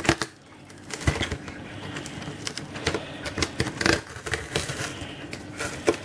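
Cardboard shipping box being handled and opened by hand: irregular taps, scrapes and rustles of the cardboard flaps and paper lining.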